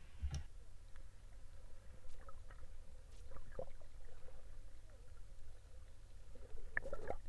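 Sea water heard by a snorkeler's camera: a low steady rumble with scattered faint clicks and small gurgles.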